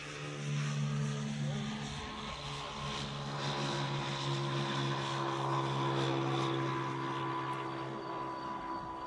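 A steady engine drone with a low hum and a fainter higher whine, growing louder toward the middle and fading a little near the end.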